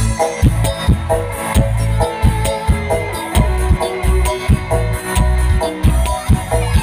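Live dangdut music from an electone keyboard: a keyboard melody over deep bass and a steady drum beat.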